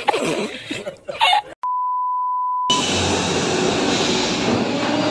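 A single steady beep, a pure tone lasting about a second, edited in as a censor-style sound effect. About a second later it gives way to the steady rolling noise of a freight train at the platform.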